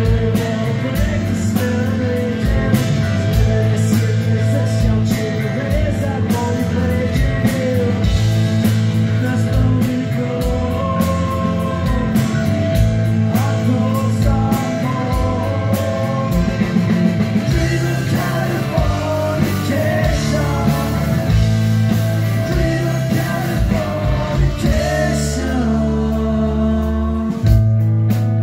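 Live rock band playing: a male singer sings into the microphone over bass guitar, guitar and drums, with regular drum hits.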